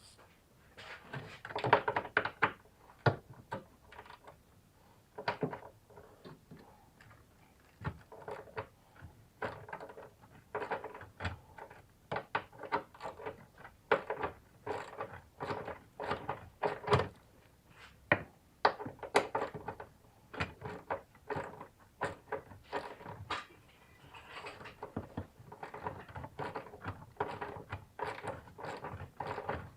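Metal hand tools clattering and knocking: irregular clusters of sharp clicks and thunks, with short quiet gaps between them.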